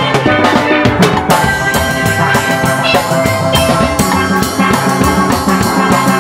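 Steel band playing a jazz tune: steelpans carrying held, ringing notes over a drum kit keeping a steady beat.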